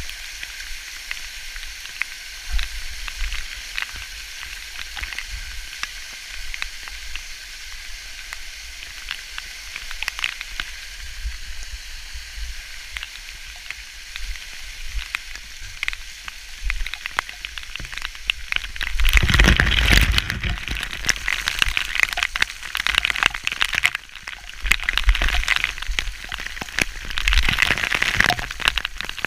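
Waterfall water splashing and pattering onto a body-worn camera, a steady hiss full of small crackling hits. About two-thirds of the way in it turns louder and fuller, with a short lull soon after.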